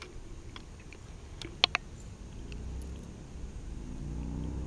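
A few sharp clicks and rattles from handling a small hooked fish and its treble-hooked rattling lure, the loudest about one and a half seconds in. Near the end a distant engine hum rises.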